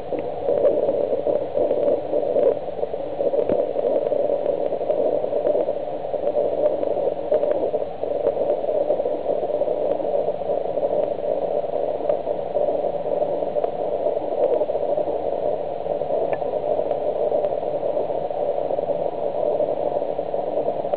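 A steady rushing background noise, centred low in pitch and without any clear tone, with a few faint clicks scattered through it.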